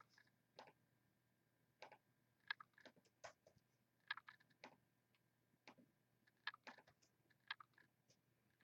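Faint, irregular clicks and keystrokes from a computer mouse and keyboard, about twenty short clicks at uneven spacing.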